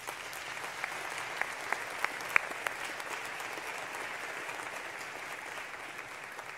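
Audience applauding, with a few sharp single claps standing out in the first three seconds.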